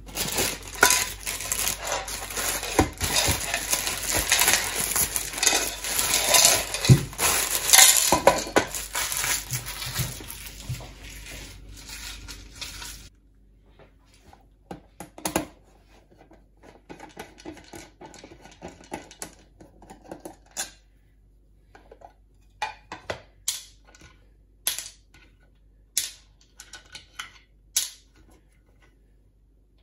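Loud, dense rustling and clattering of parts being handled, which cuts off suddenly about thirteen seconds in. After that come scattered light clicks and knocks as a plastic weatherproof enclosure is set down on a wooden worktop and a screwdriver works the screws of its lid.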